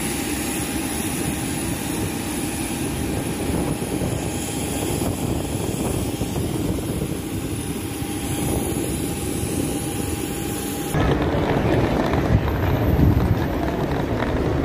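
Steady engine noise: a low rumble with a faint steady whine above it, changing abruptly about eleven seconds in to a louder, rougher rumble.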